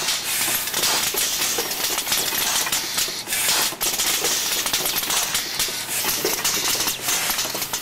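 Automated machine with pneumatic actuators running: fast, irregular clicking and clattering of its metal parts over a steady hiss.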